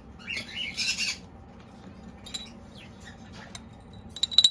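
Salt being poured into a bowl of shredded chicken filling, a short rustling patter in the first second. Then a few scattered light clicks and clinks of a utensil against the bowl, with a cluster of sharper clinks and a brief squeak near the end.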